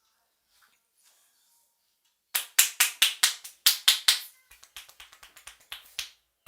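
Rhythmic hand slaps of a head massage: about nine sharp, loud strikes at roughly five a second, then a run of softer, quicker pats.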